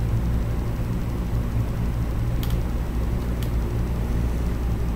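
Steady low mechanical hum of room background noise, with two short faint clicks near the middle.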